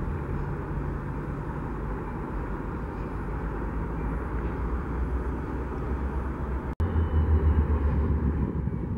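Steady low vehicle rumble with a noisy haze over it. A brief dropout comes about seven seconds in, and a louder, throbbing low rumble follows it.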